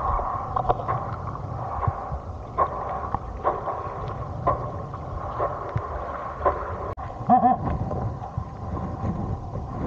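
Wind rumbling on the microphone over a steady outdoor hiss, with scattered short clicks and a brief voice-like call about seven seconds in.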